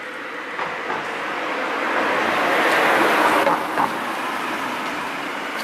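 A passing vehicle: a noise without any clear pitch that swells to its loudest about three seconds in, then fades.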